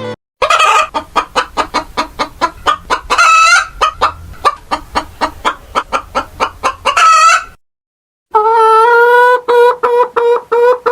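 Chicken clucking in rapid repeated short calls, about three to four a second, breaking off briefly about eight seconds in and then going on.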